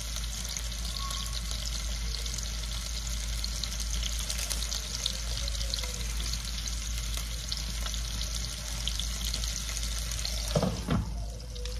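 Food frying in a pan on the stove: a steady sizzle with fine crackling. Near the end there is a short, louder sound.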